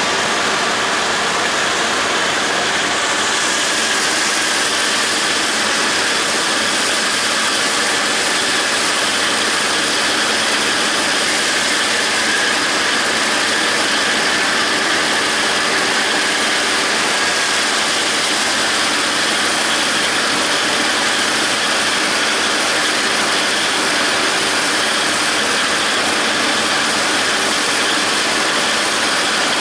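John Deere 5320 tractor's diesel engine running steadily under load, driving a John Deere 270 disc mower through standing grass hay, heard from the tractor seat.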